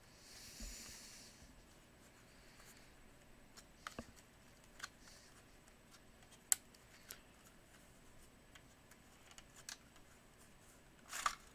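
Plastic housing of a Black & Decker DustBuster hand vacuum being handled and pried apart: faint scattered clicks and light scraping of the plastic parts. There is a soft rustle in the first second and a louder scraping rustle near the end.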